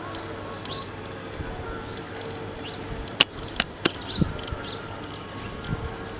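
Birds chirping in short, scattered calls over a steady background, with a few sharp clicks a little after three seconds in and a low thump around four seconds in.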